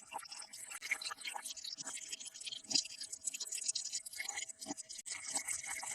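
Close-up handling of small plastic toy pieces: dense light scraping, rubbing and clicking, over a faint steady hum.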